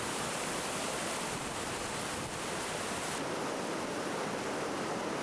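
Mountain river torrent rushing and splashing over boulders close to the microphone: a steady, full whitewater rush.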